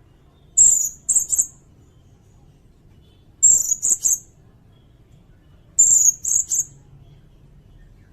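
Sirindet bird calling: three loud, very high-pitched phrases about two and a half seconds apart. Each opens with a sliding note and is followed by two or three quick short notes.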